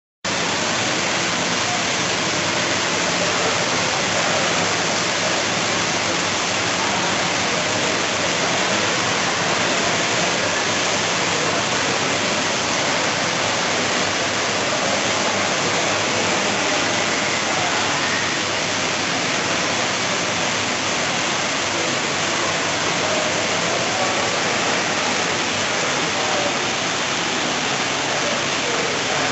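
Heavy storm rain pouring steadily, a dense, even hiss of water with no let-up.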